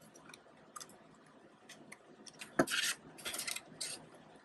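Paper bills and a plastic cash envelope in a ring binder being handled. It is soft at first; about two and a half seconds in comes one sharp click, then about a second of crinkly rustling as the envelope is opened and bills are put in.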